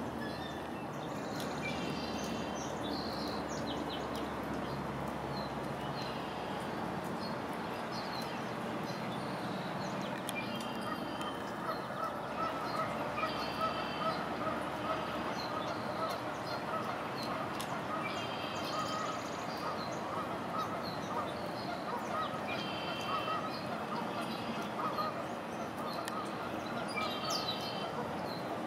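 Steady rain hiss with birds calling again and again in short calls every few seconds, among them honking waterfowl.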